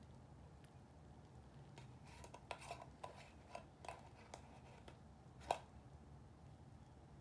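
Metal screw-top lid of a small candle tin being twisted open by hand. A run of small metallic scrapes and clicks from the threads ends in one sharper click at about five and a half seconds, as the lid comes free.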